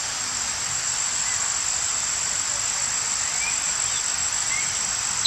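Forest ambience: a steady, high-pitched insect drone over a constant hiss, with a few faint, short bird chirps scattered through it.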